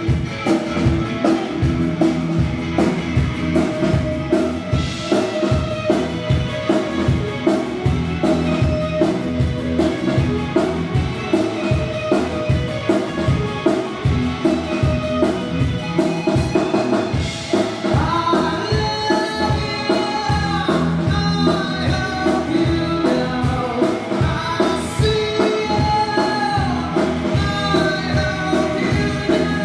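Music with a steady drum beat and a singing voice, played at a sound check.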